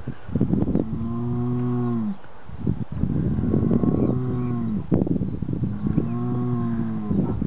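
A Belgian Blue bull calling three times with long, pitched, donkey-like brays. Each call arches up and then down in pitch, with rasping breaths between them.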